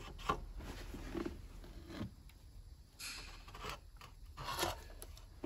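Faint rubbing and scraping handling noises, a few short scuffs and a brief hissy scrape, from a borescope and its probe cable being handled and fed into a spark plug hole.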